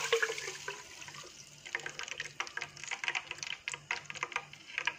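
Red palm oil crackling in a hot stainless-steel pot: a short fading pour at first, then scattered small irregular pops as the oil heats.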